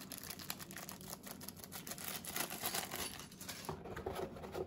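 Soft, irregular crinkling and rustling of plastic packaging with light clicks and taps as small keyboard accessories are handled.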